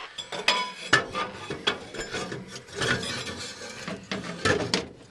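A screw being driven by hand into the furnace's sheet metal: irregular clicking and scraping of a screwdriver and screw on metal, coming in short spells with pauses.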